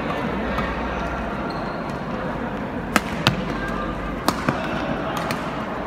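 Badminton rackets striking the shuttlecock in a fast doubles rally: a string of sharp cracks, mostly in the second half and often in quick pairs, over steady hall noise.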